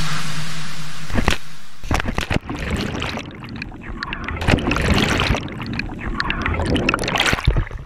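A person splashing into the water off a water slide, with a loud rush of spray, followed by the muffled bubbling, gurgling and knocking of water around a camera that goes underwater.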